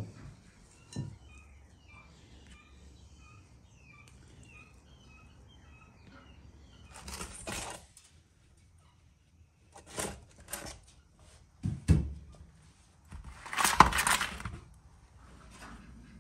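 Metal baking trays scraping and clanking against the brick floor of a wood-fired oven as loaves of bread are drawn out, with several knocks and one long scrape near the end as the loudest sound. Faint bird chirps in the first few seconds.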